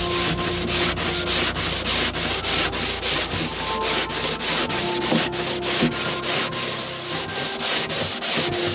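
Hand sanding board with sandpaper scraping over a faired fiberglass boat deck in quick, even back-and-forth strokes.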